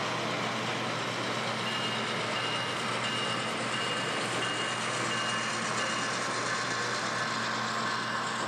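Steady busy-hall background noise with a low hum. A high electronic beep repeats about twice a second, starting about two seconds in and stopping after about four seconds.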